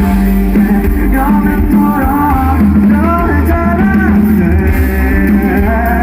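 Live rock band playing loudly, with electric guitars, bass and drums under a sung vocal melody.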